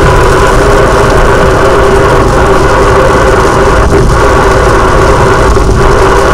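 A car's engine and road noise, heard from inside the cabin while driving. The sound is loud and steady throughout.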